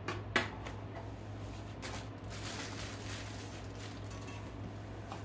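Handling noise of chopped green bell pepper being dropped into a plastic zip-top bag: two sharp clicks near the start, then the bag rustling for a second or two.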